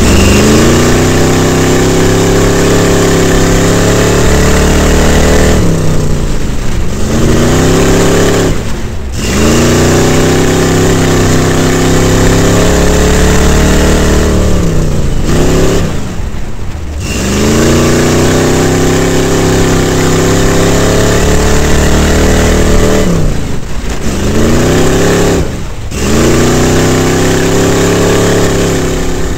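Off-road race truck's engine, loud from inside the cockpit, held at high revs and then dropping off sharply about six times as the throttle closes, its pitch climbing back up each time it accelerates again.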